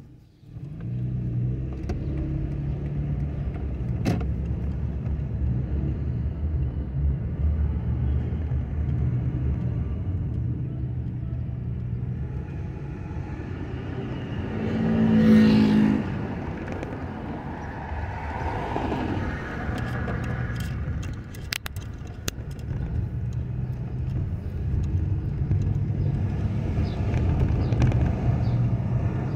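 A car driving, heard from inside the cabin: a steady low engine and road hum. About halfway through a brief, louder pitched sound rises over it, followed by a short falling whine.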